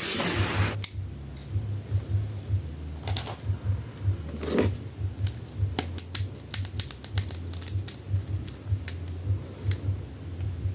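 Plastic action figure and its packaging being handled: a run of sharp plastic clicks and taps, thickest about five to eight seconds in, over a low uneven rumble.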